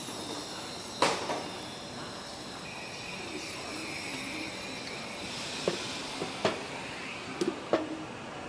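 Car assembly line machinery: a steady hiss and hum with a high whine, and sharp metallic knocks, one loud clank about a second in and several more in the second half.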